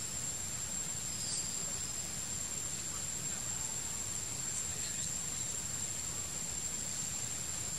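Steady hiss of forest ambience with a continuous high-pitched whine, and a faint short chirp about a second and a half in.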